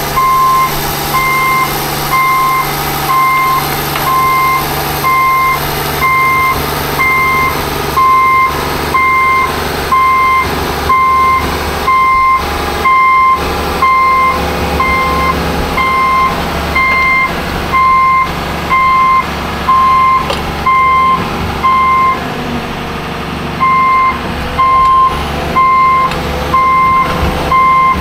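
John Deere 240D LC excavator tracking with its travel alarm beeping, one steady pitch at about three beeps every two seconds, over the running diesel engine. The beeping pauses for about a second near the end and then resumes.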